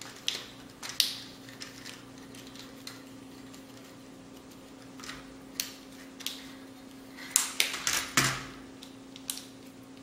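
Soft plastic of a toy RC car body being cut and cracked apart with clippers: scattered sharp clicks and snaps, several in quick succession near the end, over a faint steady hum.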